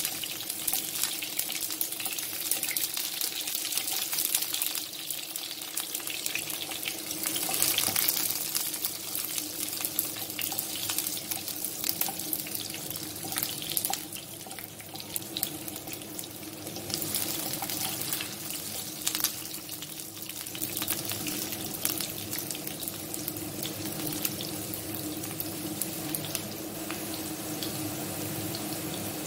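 Sliced onions, dried red chillies and bay leaves sizzling in hot oil in a nonstick wok, a steady hiss with a wooden spatula scraping and tapping the pan now and then. A steady low hum runs underneath.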